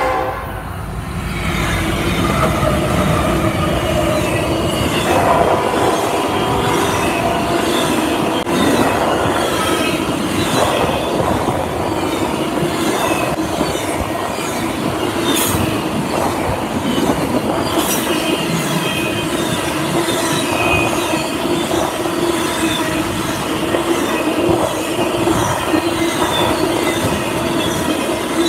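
Double-stack intermodal freight train passing close by: the diesel locomotives go past in the first seconds, then a long line of container well cars rolls by with steady wheel and rail noise. A couple of brief high wheel squeals come around the middle.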